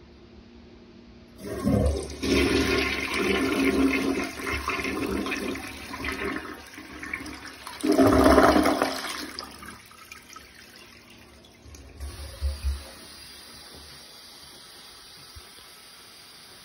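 Rheem toilet flushing: water rushes into the bowl about a second and a half in, surges louder again about halfway through as the bowl empties, then dies down to a much quieter trickle.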